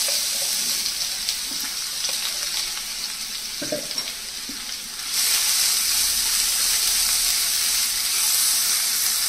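Finely chopped onions sizzling in hot ghee and oil in a nonstick kadai, stirred with a silicone spatula. The sizzle is a steady hiss with small crackles and gets louder about halfway through.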